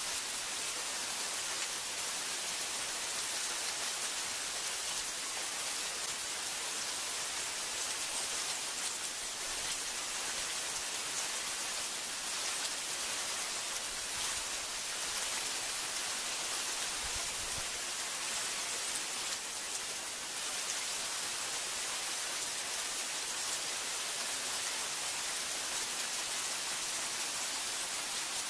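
Steady heavy rain falling on forest trees and palms, an even, unbroken hiss.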